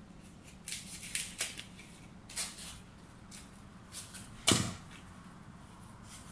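Hands working stiff palm leaves into floral foam: a few short, crisp rustles and clicks, then one louder knock about four and a half seconds in.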